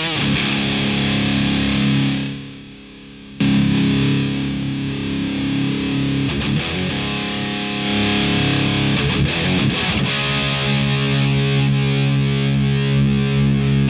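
Electric guitar played through a Madbean Upper Decker, a very high-gain amp emulator pedal: heavily distorted chords left ringing, then muted about two seconds in, followed by a hard-struck new chord.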